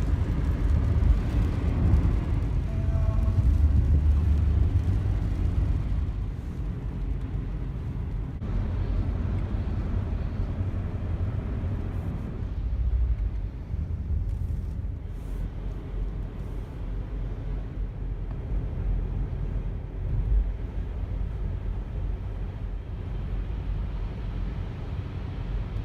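Car driving on rain-wet roads, heard from inside the cabin: a steady low rumble of engine and tyres, louder for the first few seconds and then easing off.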